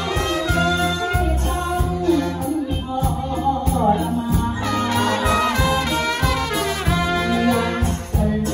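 Live band playing a Thai luk thung song: drum kit and bass guitar keeping a steady beat under saxophone and trumpets, with a man singing into a microphone.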